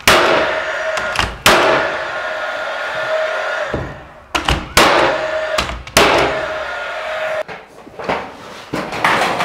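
Cordless nail gun driving nails into wooden window trim: about five sharp shots in the first seven seconds, each followed by a steady hum lasting a second or two. Lighter knocks near the end.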